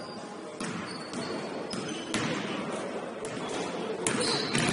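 A basketball bouncing on a court several times at an irregular pace, with a few short high squeaks and a steady hall murmur behind.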